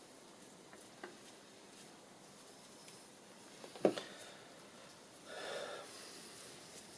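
Quiet handling noises at a workbench. There is a faint click about a second in, one sharp knock just before the four-second mark, and a brief rustle or wipe a moment later.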